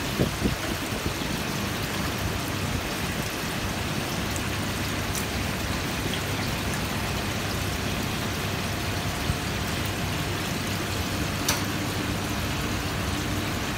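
Steady rushing noise of commercial fast-food kitchen equipment (fryers and ventilation) with a low hum, broken by a couple of light clicks.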